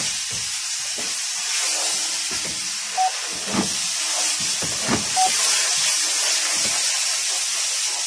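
Steady hiss in a 2011 GMC Acadia's cabin, with a few soft clicks and two brief beeps about three and five seconds in, as the automatic transmission's gear selector is moved from drive to park to neutral.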